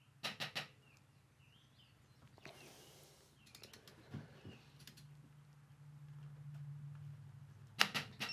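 Subaru FA/FB crankshaft pulley bolt creaking and squeaking as it is pulled round with a torque-angle wrench, with sharp clicks at the start and near the end. The creak comes from too little lubrication under the bolt head and on the threads.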